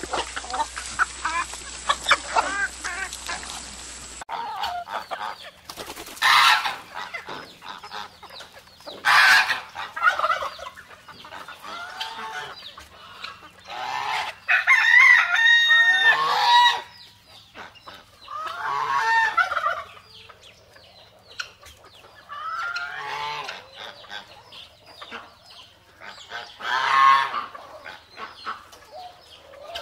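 Farmyard chickens: hens clucking and a rooster crowing several times, with separate loud calls spread through, the longest about halfway through.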